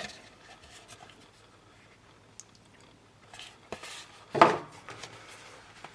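Cardboard collector's box and its contents being handled: faint taps and clicks, then a louder short scrape or rustle about four and a half seconds in as items are slid out.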